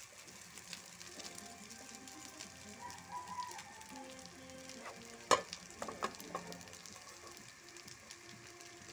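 Garlic fried rice sizzling as a metal spatula stirs and scrapes it around a stainless steel pan. There is a sharp clank of metal on metal about halfway through, followed by a few lighter knocks.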